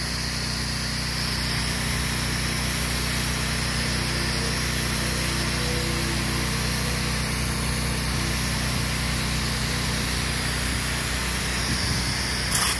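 Pressure washer's engine running steadily, with the hiss of the wand's high-pressure spray on vinyl siding. There is a short sharp knock near the end.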